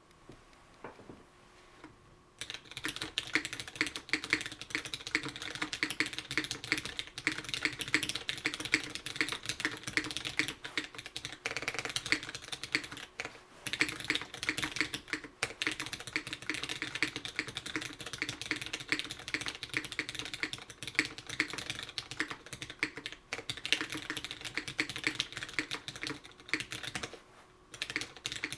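Typing on a Merisi sessantacinque (65%) mechanical keyboard with Cherry MX Brown switches on a carbon fibre plate and doubleshot keycaps, with no deskmat under it: a fast, steady run of keystroke clacks that begins about two seconds in, with short pauses twice.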